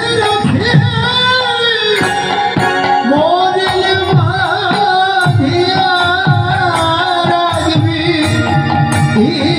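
Live Bengali kirtan music: a sung melody over a regular drum beat with short percussion strikes.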